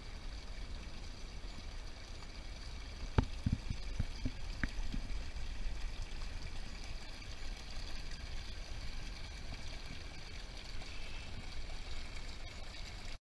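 A small stream trickles and splashes down a bank into a creek, a steady running-water sound. A few light knocks come about three seconds in, the first one sharp and the loudest, and the sound cuts off abruptly near the end.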